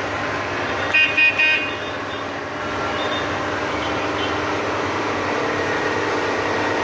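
Vehicle horn giving three quick toots about a second in, over the steady hum of a running engine.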